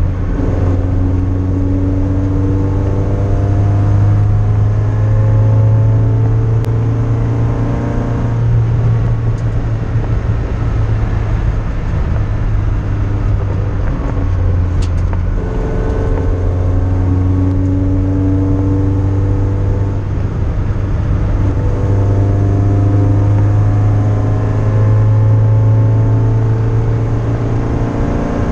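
An MGF race car's engine heard from inside its stripped-out cabin, running hard under load on track. The loud engine drone rises and falls in pitch several times as the car accelerates, lifts off and picks up again through the corners.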